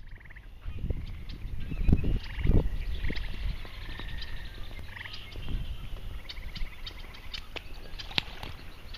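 Marsh wildlife calling: short pulsed trills and chirps repeating high up, with a few loud low rumbling bumps about two seconds in.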